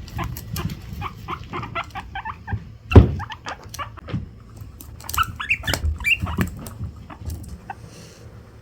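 Guinea pigs squeaking in many short repeated calls, with light scuffling and one loud thump about three seconds in.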